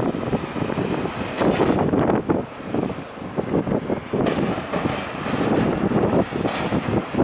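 Building demolition: concrete and rubble crashing and crunching down in many irregular knocks over a continuous rumble.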